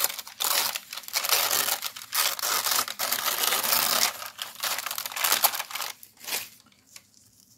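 Sheets of thin collage paper rustling and crinkling as they are handled and torn by hand, with ragged tearing; it stops about six and a half seconds in.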